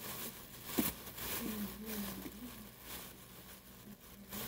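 Thin plastic shopping bag rustling and crinkling as hands work at its knot to undo it, with a short knock about a second in.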